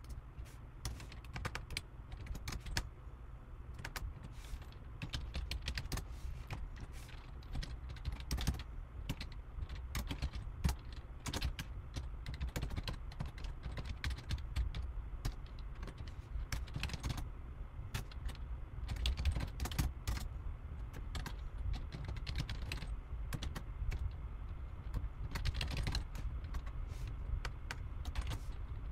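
Typing on a computer keyboard: irregular runs of key clicks over a low steady hum.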